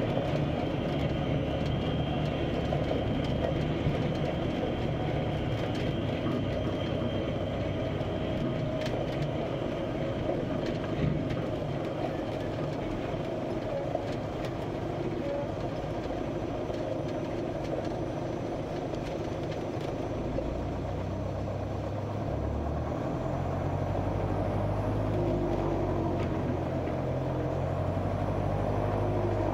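Van's RV-8 light aircraft's piston engine and propeller running steadily as a continuous drone. The low part of the drone shifts about two-thirds of the way through.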